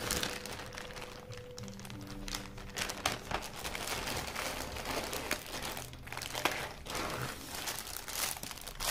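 Clear plastic zip bags crinkling and rustling as they are handled and opened, in irregular crackly bursts.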